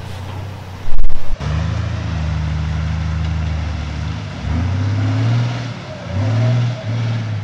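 A four-wheel-drive's engine running off-road. There is a loud thump about a second in, then a steady engine drone, then several revs up and back down.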